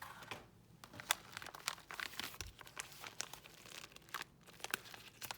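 Packaging crinkling and rustling as it is handled and unwrapped, a dense run of irregular sharp crackles.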